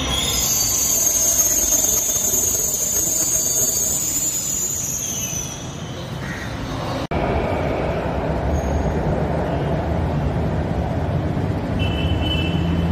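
Mumbai Metro train running along the platform with a high-pitched steady squeal that dips slightly in pitch and stops about five seconds in. After a sudden cut, a steady low rumble.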